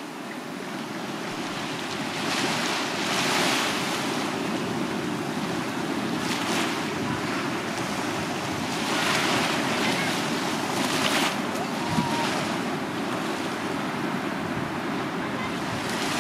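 Small waves breaking gently and washing up a sandy beach, the surf swelling every few seconds over a steady rush.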